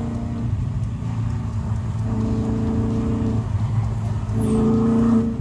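V8 engine of a homemade GT40 replica at speed on a track, heard from inside the cabin over a steady low rumble. Its note comes up strongly about two seconds in, eases off, and comes up again near the end.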